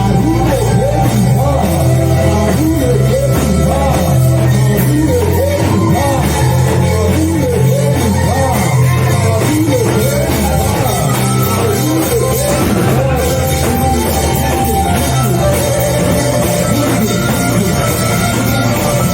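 Live worship music: a keyboard or bass holding low sustained chords, with a wavering melodic line above, possibly voices singing softly.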